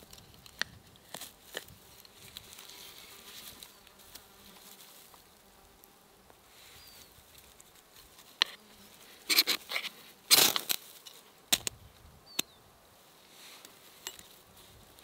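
A knife blade shaving curls off a dry stick a few times, then, after a quiet stretch with faint insect buzzing, a quick run of harsh scrapes about nine to eleven seconds in and two more shortly after: the knife's spine struck down a ferro rod onto wood shavings to throw sparks for lighting tinder.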